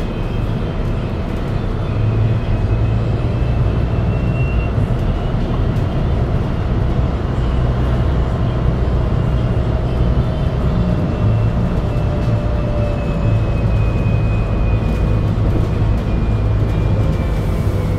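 Cabin sound of a MAN Lion's City Hybrid city bus driving: a steady low rumble from the drivetrain and road, with a faint whine that slowly drops in pitch.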